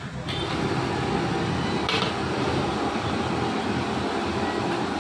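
Steady roar of the gas burner under a steel wok of fried rice, with a metal spatula scraping and clinking against the wok near the start and again about two seconds in.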